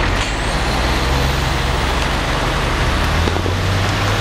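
Fire engine pumper pulling away at low speed, its engine running with a steady low drone, while laying supply hose from its hose bed.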